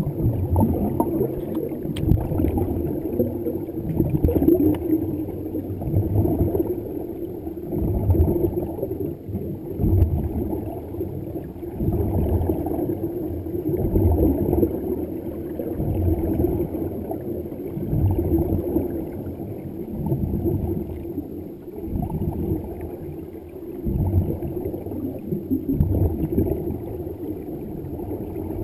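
Muffled underwater bubbling and rumble of air escaping from the dive helmets of an underwater reef walk. It swells roughly every two seconds over a steady low hum.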